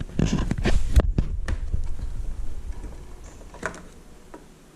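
Handling noise on the recording phone or camera: low thumps and rumbling with a few sharp clicks and knocks as it is moved about. The noise fades out over the last second or so.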